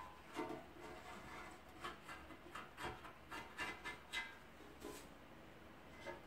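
Gloved hand scrubbing the inside of a Jeep Cherokee XJ oil pan to clean it for a new gasket: faint, irregular short rubbing and scraping strokes.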